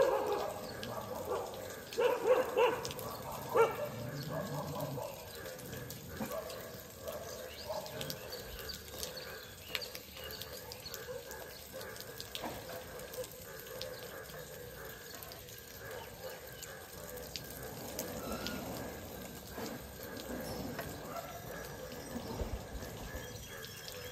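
Street dogs barking several times in the first few seconds, then a low steady outdoor background with scattered faint ticks.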